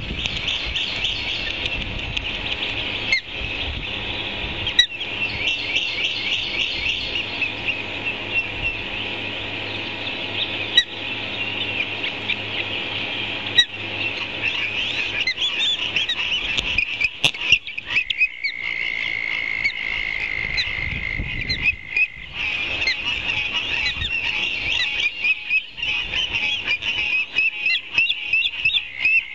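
Ospreys calling at the nest: a fast, continuous series of high whistled chirps, with one long steady whistle in the middle and a few sharp knocks.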